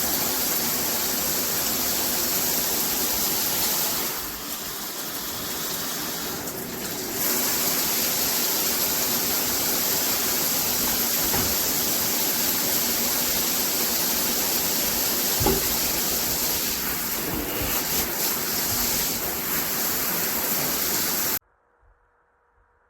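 Tudoccy shower head spraying water in a steady rush. The spray is briefly quieter about four seconds in and stops abruptly near the end.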